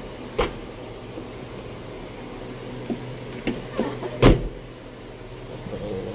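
Over a steady low hum, a sharp click about half a second in, then a few smaller knocks and a heavy thud about four seconds in.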